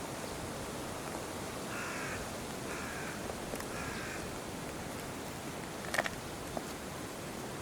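A bird calling three times, about a second apart, over steady background noise, with a single sharp click a couple of seconds later.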